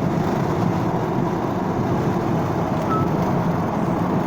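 Steady road and engine drone inside a moving car's cabin.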